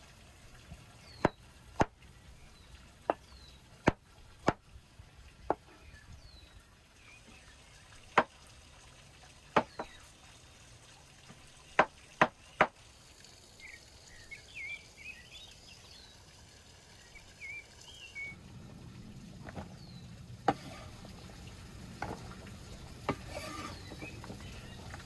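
Cleaver blade chopping button mushrooms on a wooden cutting board: sharp single knocks at uneven intervals, most of them in the first half, with a few more near the end.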